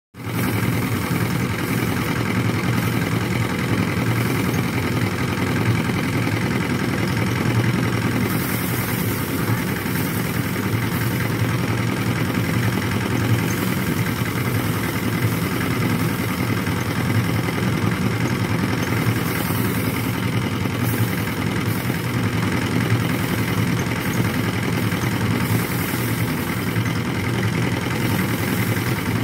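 Paddy thresher's spinning wire-loop drum running steadily as sheaves of rice are held against it to strip the grain: a continuous mechanical hum.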